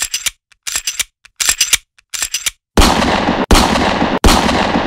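Gunfire sound effects: four quick bursts of sharp, rapid shots, then from about three seconds in a run of loud, noisy blasts, each under a second long, with short gaps between them.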